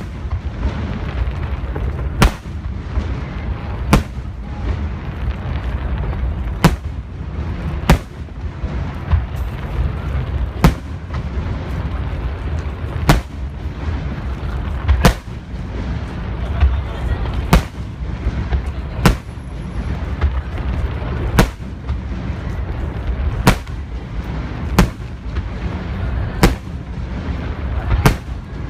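Aerial fireworks shells bursting in a display finale: a sharp bang every second or two over a continuous low rumble.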